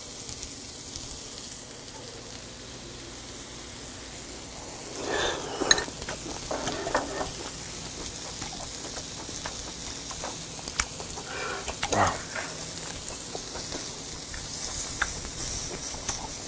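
Hanwoo beef tenderloin sizzling on a small tabletop hwaro brazier, a steady fat-spitting hiss that grows louder near the end as the meat is moved with tongs. A few brief clicks and knocks come in between.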